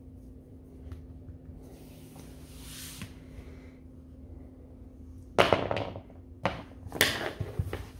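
Golden retriever puppy moving about with his chew: a soft rustle about two seconds in, then a few loud, sudden scuffs and knocks in the last three seconds as he moves around quickly.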